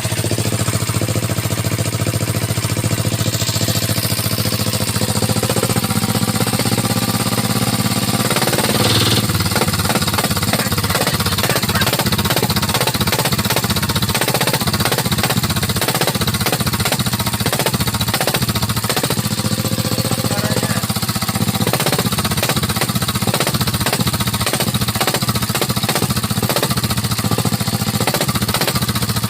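Dongfeng single-cylinder diesel engine running through an Akrapovic racing exhaust. It runs fairly smoothly at first, then about eight seconds in settles into a slower, loud chugging, each firing stroke a separate sharp exhaust pop.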